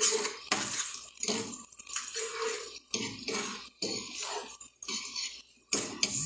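Eggs and chorizo frying in oil in a pan, sizzling in uneven surges of hiss that rise and fall every second or so.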